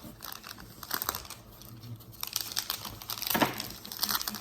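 Plastic wrapper of a Pokémon card pack crinkling and crackling as it is handled and torn open, with a louder burst of crinkling about three and a half seconds in.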